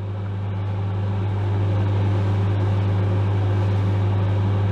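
Microwave oven running, a steady low hum over an even whir.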